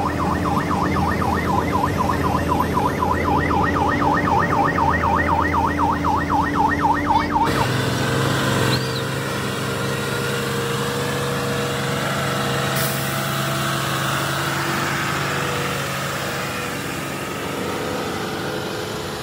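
A fast warbling electronic siren, about four wobbles a second, over a running diesel engine, cutting off abruptly after about seven seconds. Then a heavy truck's diesel engine runs steadily as it hauls a precast concrete bridge girder on a low trailer.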